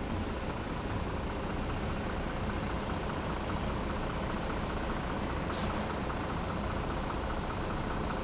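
Steady city road traffic at a junction, a continuous low rumble of idling and passing cars and vans, with a brief faint high sound about five and a half seconds in.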